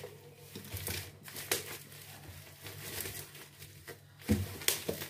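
Black plastic wrapping on a shipping parcel crinkling and rustling as the parcel is handled and turned over, with a couple of louder bumps about four seconds in.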